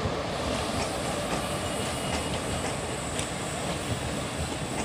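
Passenger train running along the tracks at a distance: a steady rolling rumble with faint clicks of wheels over rail joints.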